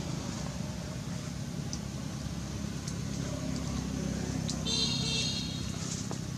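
A motor engine running steadily, giving a low hum, with a brief high-pitched sound about five seconds in that lasts under a second.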